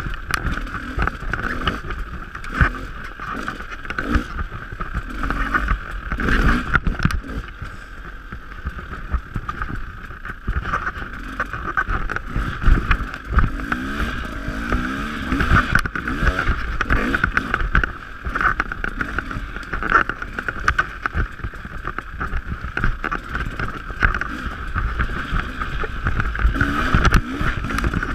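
Dirt bike engine revving up and down again and again while riding a rough trail, with frequent knocks and rattles.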